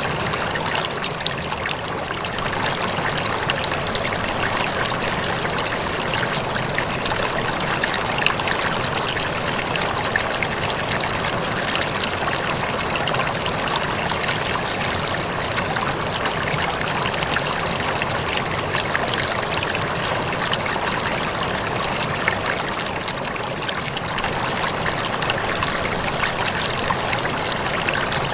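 Steady trickling and splashing of water circulating in a home aquarium, with a fine crackle of small splashes throughout.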